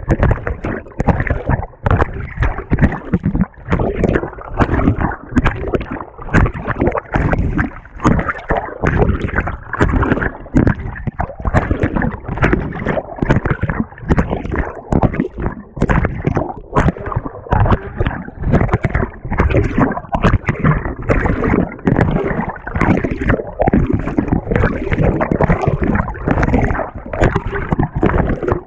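Water and laundry churning and sloshing in a GE GTW220ACKWW top-loading washer as the agitator works, heard from inside the tub, in quick irregular surges.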